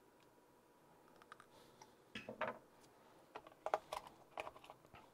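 Scattered light clicks and small rattles of hands working the brushless motor and its wires into place in a plastic RC truck chassis, starting about a second in, with a brief louder clatter a little after two seconds.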